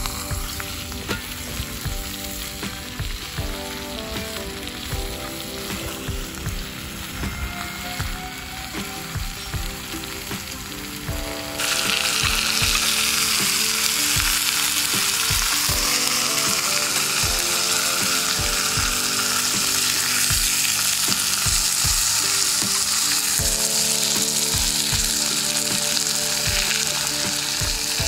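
Sausages with melting cheese on top frying in a small square pan on a gas canister stove. About twelve seconds in, a loud, steady sizzle starts suddenly. Before that there are only light clicks and crackles under background music, and the music carries on quietly beneath the sizzle.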